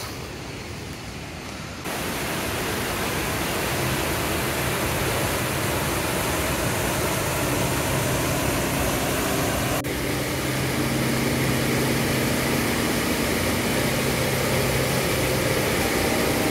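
Roar of the Brule River's Devil's Kettle waterfall running high: a loud, steady rushing that cuts in sharply about two seconds in, after quieter trail ambience. Faint steady low tones sit under it from a few seconds later.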